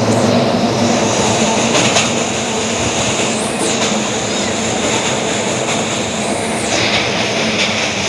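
Osaka Metro Tanimachi Line subway train running at the platform with a steady rumble. A thin, high-pitched squeal runs through the middle and briefly rises in pitch twice.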